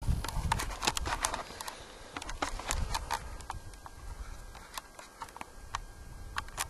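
Bare feet walking on gravelly desert ground: irregular sharp clicks with low thumps, thick in the first second and a half and thinning to scattered clicks after.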